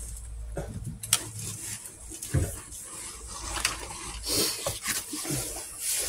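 Handling noise from hands-on work right beside the microphone: cloth rustling, with scattered clicks and knocks. The sharpest click comes about a second in, and a duller thump comes a little after two seconds.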